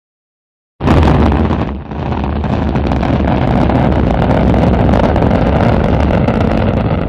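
Rocket engine firing: after silence, a loud rumbling noise starts suddenly about a second in, dips briefly, then runs on steady and loud.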